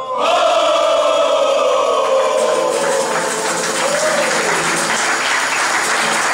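A group of men's voices holding one long sung note that falls slowly in pitch, giving way about two and a half seconds in to the group clapping their hands in applause.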